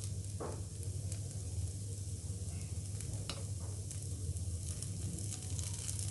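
Dosa batter and cheese sizzling steadily in an oiled cast appe pan on the stove, over a steady low hum, with a few faint taps as a spoon sets paneer pieces into the cups.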